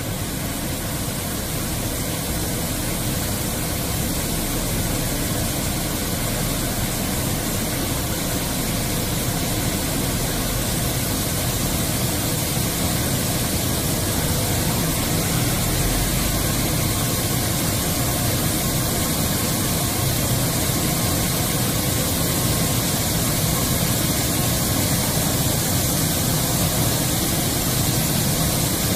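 Touchless automatic car wash machine running, a steady loud hiss of jets over a low rumble that slowly grows louder.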